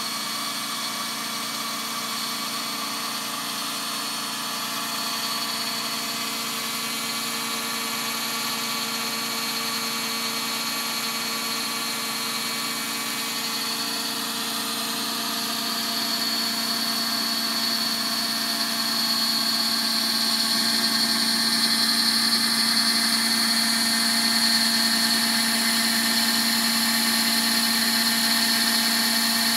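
Rose engine's belt-driven powered cutting frame running: a small motor and round drive belts spin the cutter in a steady whine with several held tones. It gets a little louder about two-thirds of the way in.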